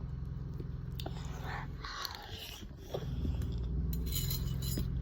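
Close-up mouth sounds of someone eating fried noodles with rice and chicken nuggets: biting and chewing, with a few light clicks, over a steady low hum.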